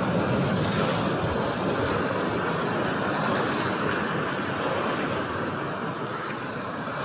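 Steady rush of surf with wind buffeting the microphone, easing slightly near the end.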